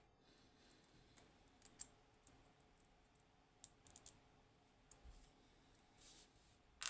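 Faint, scattered clicks of small metal lock parts and tools being handled during disassembly: a few light ticks, with a sharper click near the end.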